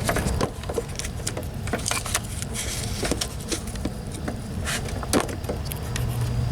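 Scattered clicks and taps of hands pushing a duct-taped plastic vacuum-hose fitting into its rubber hose, over a low outdoor rumble. A steady low hum starts near the end.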